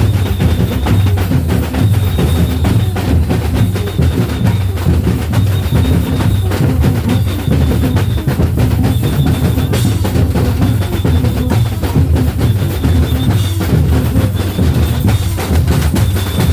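Samba batucada drum ensemble playing: deep bass drums pulse steadily underneath while lighter drums hit fast, dense patterns over them, with a short high tone recurring about every two seconds.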